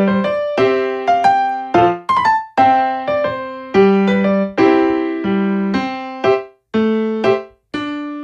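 Background music: a gentle piano-style keyboard piece playing chords and short melody notes, each note struck and fading away.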